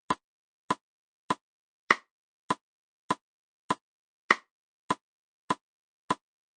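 Metronome ticking at 100 beats a minute, every fourth beat accented with a louder click.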